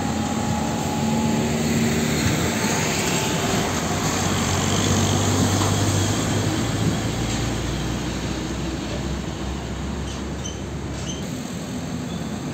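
Heavy diesel container trucks passing at low speed: engine drone and tyre noise, with a deep engine rumble strongest from about four to eleven seconds in.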